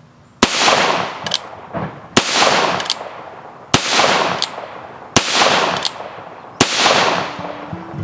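Pedersoli Doc Holliday 38 Special single-action revolver fired five times, about a second and a half apart, each shot echoing away over about a second. A lighter click, the hammer being cocked, comes before each shot.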